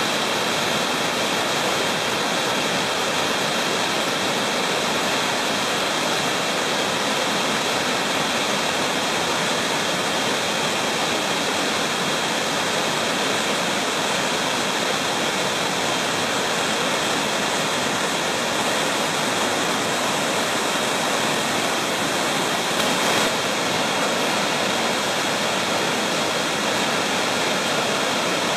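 The South Umpqua River's falls: water pouring steadily over a broad, sloping bedrock ledge and churning into a pool below, an even, unbroken rushing.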